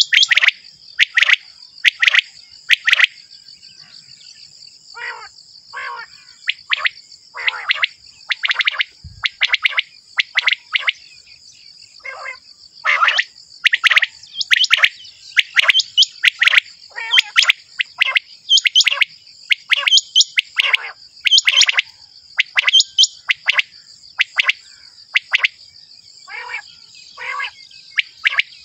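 Quail calling over and over: short, sharp notes in quick runs with brief gaps between them, over a steady high insect buzz.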